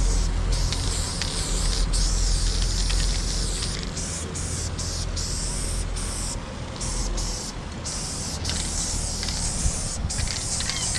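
Aerosol spray paint can hissing in long bursts with brief breaks as white paint is sprayed onto a truck's metal side panel, over a low steady rumble.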